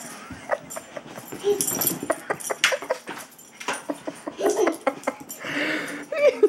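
Small dog making short, repeated vocal noises as it jumps about and plays, among scattered sharp clicks and rattles.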